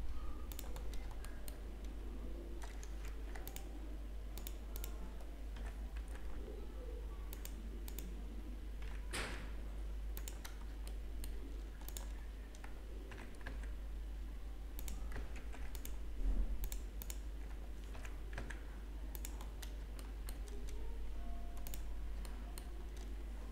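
Computer keyboard keys and mouse buttons clicking now and then, irregularly spaced, over a steady low hum.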